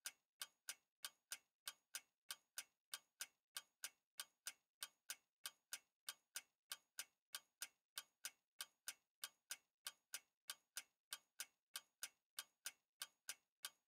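Ticking-clock countdown timer sound effect: steady, evenly spaced ticks, about three a second.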